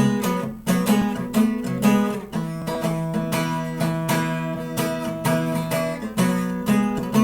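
Acoustic guitar strumming chords in a rock song's instrumental intro, with one chord left ringing for a few seconds midway.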